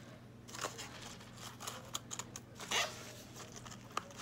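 Paper and cardstock rustling and scraping in short, irregular bursts as paper shred, trim and paper flowers are pushed into a cardstock box, with one sharp tap near the end.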